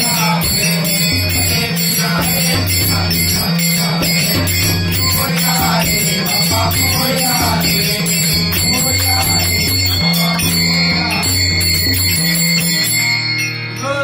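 Men singing a Malvani devotional aarti in chorus, with small hand cymbals jangling in a steady rhythm and a hand drum keeping the beat. The drumming stops near the end.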